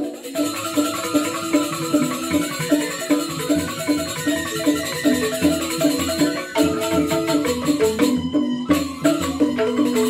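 Balinese joged bumbung gamelan music: bamboo xylophones playing fast, interlocking repeated patterns over steady percussion strokes.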